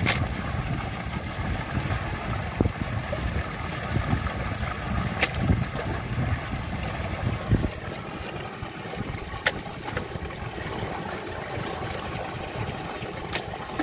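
Water splashing and dripping as handfuls of raw mutton pieces are washed in a steel basin and dropped, wet, into a steel pot. A low rumble runs through the first half.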